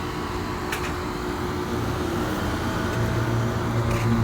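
Goodman residential air-conditioner condensing units running: scroll compressors humming steadily under the whir of their condenser fans, with a faint tick about a second in.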